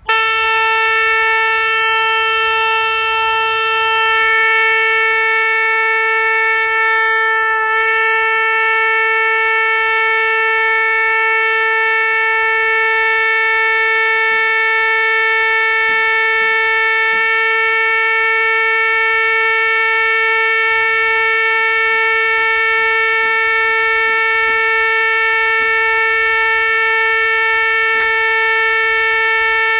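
A single horizontal trumpet-en-chamade reed pipe of a Ruffatti pipe organ sounds one sustained note, held steadily while the pipe is being tuned. There is a brief wobble in the tone about eight seconds in and a faint click near the end.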